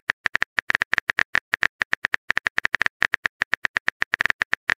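Touchscreen keyboard key-press clicks, a fast even run of about nine taps a second, as a text message is typed out.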